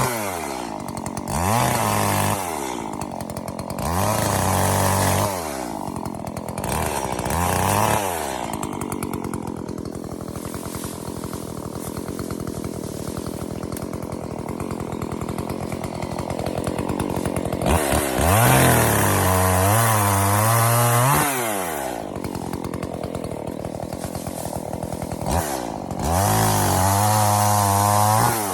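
Chainsaw cutting up a fallen ash trunk: the engine revs high in repeated bursts and drops back to a steady idle in between, with a longer high run about two-thirds of the way through and another rev near the end.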